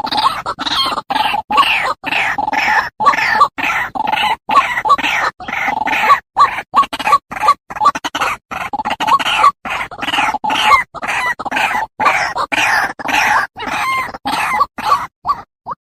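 White-breasted waterhen calling: a rapid run of harsh, repeated notes, about two to three a second, broken by abrupt gaps. It thins to a few short separate notes near the end.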